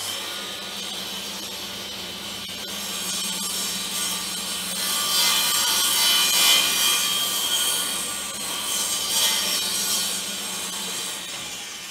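Kity table saw running, its blade cutting through a piece of OSB as the crosscut sled is pushed through. The sound is loudest in the middle, during the cut, and dies away near the end as the blade winds down.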